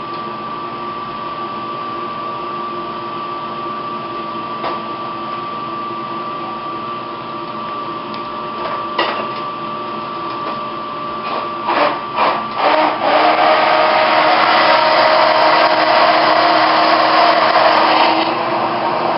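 Handheld immersion blender blending a 200 mL water sample to free Vibrio cells from the solids. Over a steady background hum, it gives a few short bursts about two-thirds of the way in, then runs steadily and loudly to the end.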